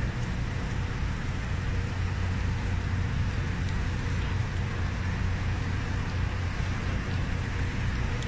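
Steady low engine rumble, heard from inside a car cabin.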